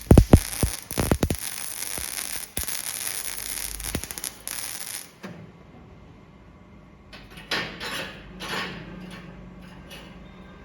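Electric arc welding crackling and sputtering, with sharp pops, cutting off abruptly about five seconds in. After that a low steady hum remains, with a few short scraping noises.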